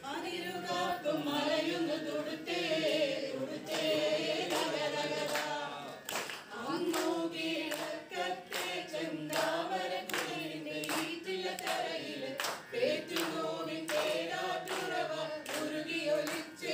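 A group of voices singing a Malayalam song together, with hands clapping a steady beat, about two to three claps a second.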